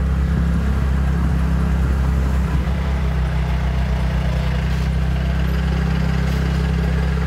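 A road vehicle's engine idling steadily: a low, even hum.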